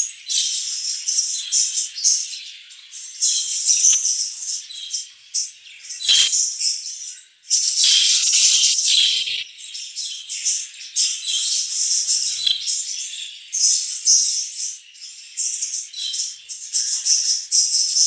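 A flock of English budgies chattering and chirping, a dense, high-pitched twittering that comes in stretches with brief lulls.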